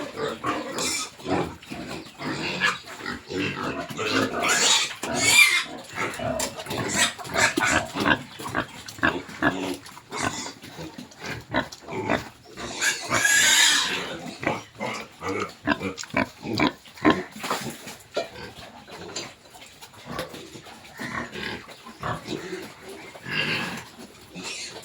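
Pigs grunting over and over, many short calls overlapping, with two louder, high-pitched cries about five and thirteen seconds in.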